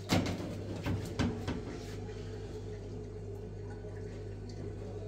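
A few metal knocks and clinks of a lidded metal pot being handled on a gas stove's grate, the loudest just after the start and more about a second in, over a steady low hum.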